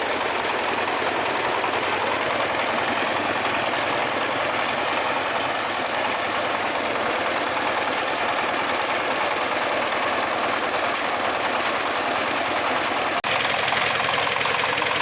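A small engine running steadily with a fast, even beat. It drops out for an instant about thirteen seconds in, then carries on slightly louder.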